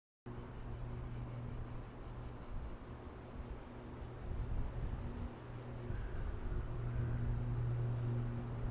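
A steady low hum with a fast, evenly pulsing insect buzz high above it, like summer cicadas.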